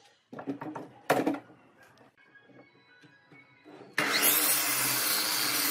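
A few knocks, then about four seconds in an electric power tool starts abruptly and runs loudly and steadily for about two seconds.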